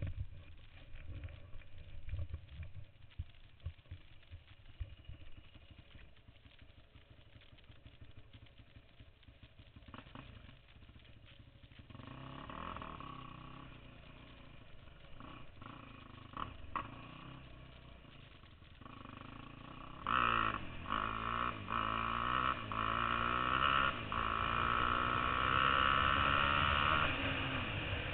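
Yamaha YFZ450 quad's single-cylinder four-stroke engine: a quiet low rumble at first, growing louder from about halfway through, then revving up and down with rising and falling pitch over the last third as the quad pulls away.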